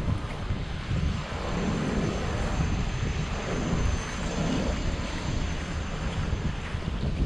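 Aircraft passing overhead, a steady rushing engine drone that fades near the end, over wind buffeting the microphone.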